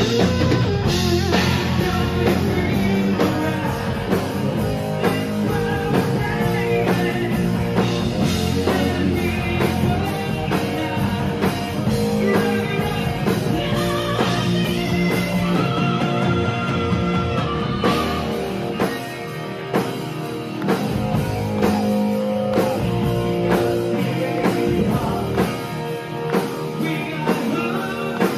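Rock band playing live: electric guitar through Marshall amplifier stacks over a drum kit, with a singer's voice at times.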